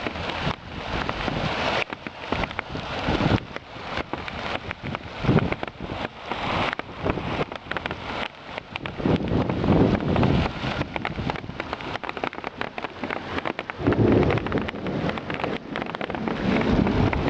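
Hail and heavy rain pelting down in a thunderstorm: a dense, continuous clatter of impacts, with low rumbling swells rising in several times.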